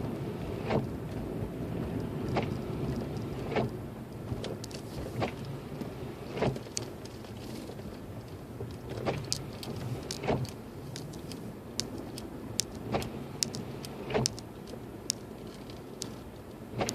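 Inside a Lexus IS250 climbing a snowy road: a steady low engine and road rumble, with a soft knock about every one to two seconds and scattered small high ticks.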